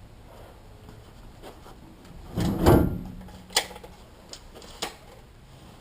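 A stacked washer-dryer unit being shifted and tilted forward: a scraping rumble about two and a half seconds in, then a few sharp knocks.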